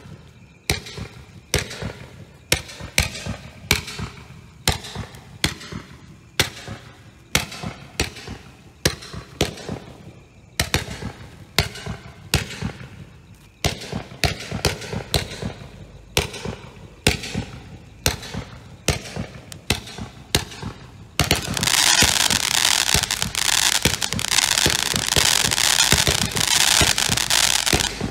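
The Rival, a 164-shot Category F3 Roman candle combination firework barrage, firing a steady run of shots at about one a second. About 21 s in, a louder, dense continuous crackling takes over.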